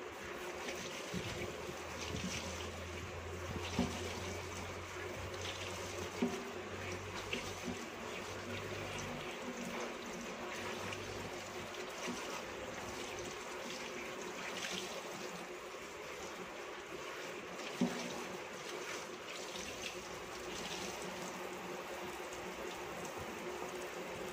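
Water spraying from a pull-down kitchen faucet into a stainless steel sink as a cloth is rinsed and squeezed under it, with a few light knocks.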